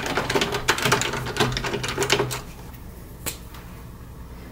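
A screwdriver unscrews screws from the plastic underside of a Commodore Amiga 500 case, making a rapid run of clicks and scrapes for about two seconds, then a single click about three seconds in.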